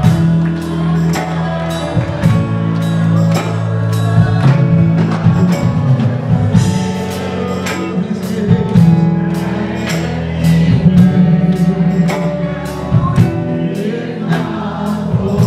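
Live gospel worship music: a praise team sings over held keyboard chords, and a steady beat of about two strikes a second comes in partway through.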